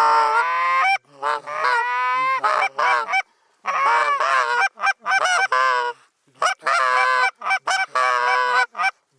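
Snow goose calls: high honks in quick, overlapping runs, in four bursts separated by short breaks.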